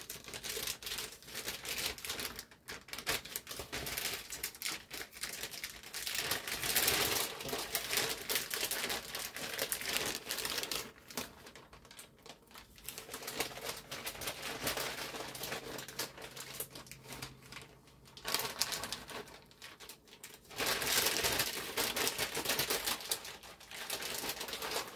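Plastic bag of shredded cheese crinkling and rustling in irregular bursts as it is handled and shaken out over a mixing bowl.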